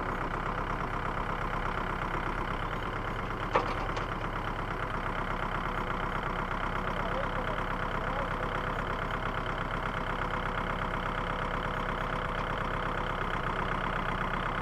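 Small tractor's engine running steadily, with one sharp knock about three and a half seconds in.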